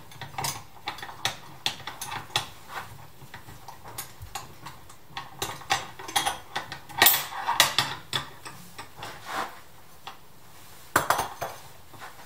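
Carabiners and a rescue pulley clinking and clacking as the old ratcheting prusik and pulley are unclipped from a rope haul system. A string of sharp metallic clicks, with a louder cluster about seven seconds in and another near eleven seconds.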